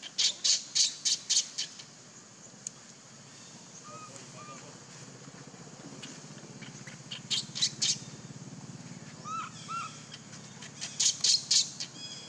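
Animal calls: three runs of four to six short, shrill squawks, about four a second, near the start, about seven seconds in and near the end. Softer paired rising-and-falling chirps come between the runs.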